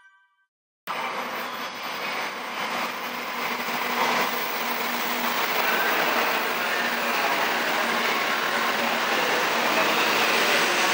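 Shinkansen bullet train running, a steady rushing noise of wheels and air that begins abruptly about a second in and grows slowly louder.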